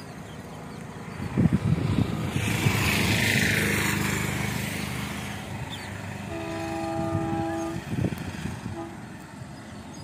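A vehicle engine rumbles, swelling about a second in with a few knocks and then fading. Then a distant multi-tone diesel locomotive horn sounds for about a second and a half, followed by a short toot.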